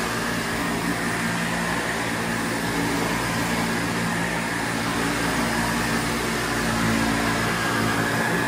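Windsor Versamatic commercial upright vacuum cleaner running steadily while vacuuming, a constant rushing motor noise with a low hum and a higher whine.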